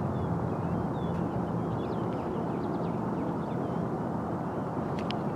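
Steady low rumble with a faint hum in it, with faint bird chirps above.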